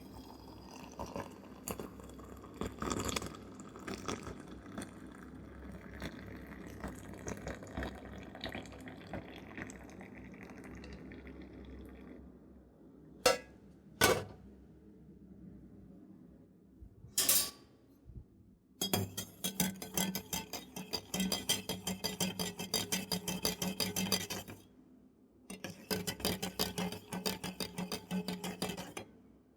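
Metal kitchen vessels being washed. A steady rush of noise with scattered knocks runs for about twelve seconds and stops suddenly. A few sharp single clinks follow, then two long spells of rapid clinking and rattling with a ringing metallic tone.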